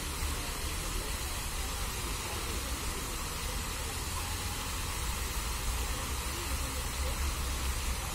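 Park fountain's water jets spraying and falling into the basin: a steady hiss of water, with a low rumble underneath.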